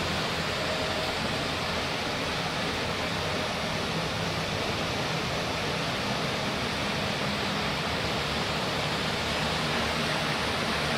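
River water pouring over a low concrete weir and churning below it: a steady rushing of falling water.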